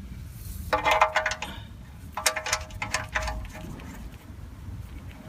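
Socket ratchet clicking in two quick runs of about a second each, with a metallic ring, as the oil drain bolt is run back into the pan.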